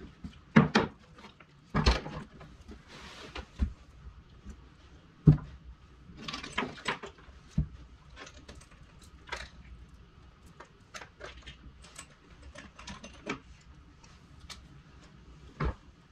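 Knocks, clicks and thumps of a Remington RM4620 chainsaw's plastic and metal parts being handled and set down on a wooden workbench during disassembly. The sounds are irregular, with a few louder thumps in the first seconds and the loudest about five seconds in.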